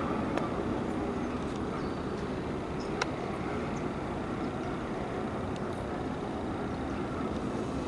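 Helicopter flying overhead: steady rotor and turbine noise with a low, rapid beat from the blades. A single brief click about three seconds in.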